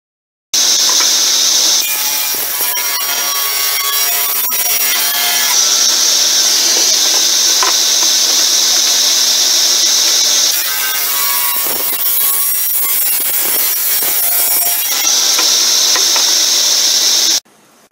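Table saw ripping the rough edge off planed ash boards: a loud, steady run of blade and motor through the wood, its tone shifting several times as the cut goes on, stopping suddenly near the end.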